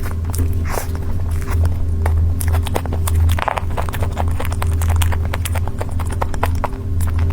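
Close-miked chewing of creamy cake: wet mouth clicks and smacks in quick, irregular succession, over a steady low hum.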